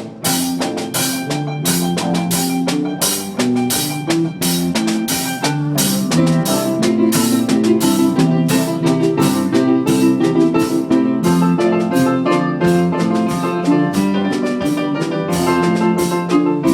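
Band music without vocals: a drum kit keeping a steady beat under sustained, changing instrumental chords.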